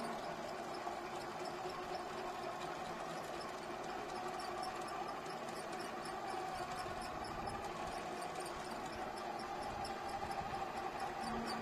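Steady whir of the small electric drive motors of a scale-model tug and ship, with a fast faint ticking over it. It grows a little louder near the end.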